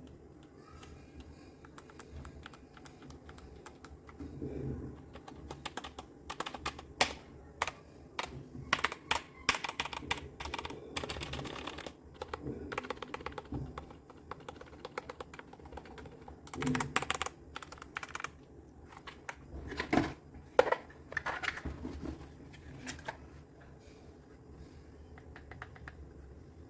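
Typing on a Redragon K596 Vishnu mechanical keyboard with linear red switches. Keystrokes start sparse, run in fast, dense bursts through the middle with a few louder strokes about twenty seconds in, then thin out near the end.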